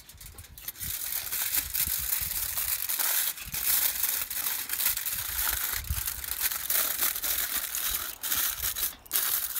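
Aluminium foil crinkling and crumpling as it is wrapped tightly by hand around a filled orange shell, with brief breaks near the end.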